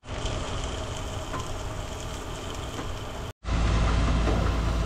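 Eggs and steak sizzling in a frying pan, cut off abruptly about three seconds in; then a low steady rumble.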